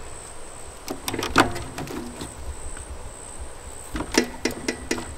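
Clicks and creaks from cables and the sheet-metal box of an outdoor electrical panel being handled. They come in two short clusters, about a second in and again about four seconds in. A steady high insect drone runs underneath.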